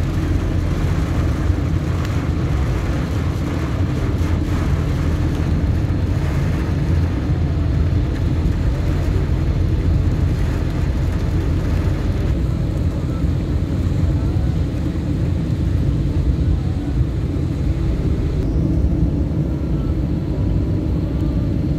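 Steady low rumble of a car driving on the highway: engine and tyre noise running without a break.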